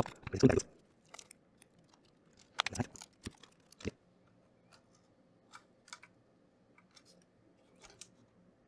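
Clicks, taps and light rattles of laptop parts being handled during disassembly. There are two louder clusters, one right at the start and one about three seconds in, then scattered faint ticks.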